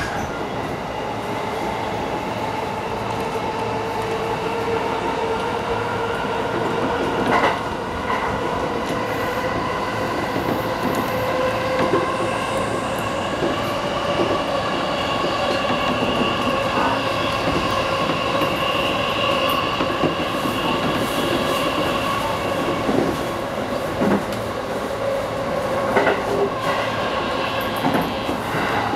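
E233 series electric train running, heard from inside the driver's cab. A steady motor whine rises slowly in pitch as the train gathers speed, then levels off over running noise, with a few single knocks from the wheels.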